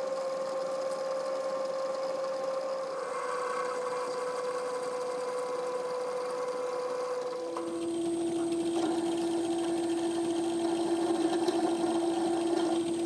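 1936 Atlas 12-inch metal lathe running while a twist drill is fed from the tailstock into the spinning workpiece, a steady machine hum with a tone in it. About seven and a half seconds in the tone drops lower and grows louder, as the drill cuts poorly because it is badly ground.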